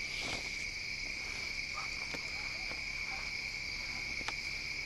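Steady evening chorus of insects, a continuous high trilling held at one pitch, with a few faint clicks scattered through it.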